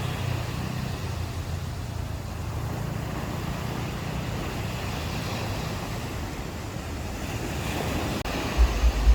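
Ocean waves washing steadily onto a beach, with wind starting to buffet the microphone near the end.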